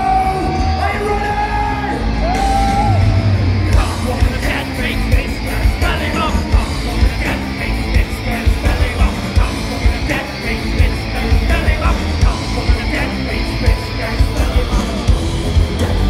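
Live thrash metal band playing loud, as picked up on a phone microphone in the crowd. The singer holds a long yelled note over the band for the first few seconds, then the full band drives on with heavy, regular drum hits.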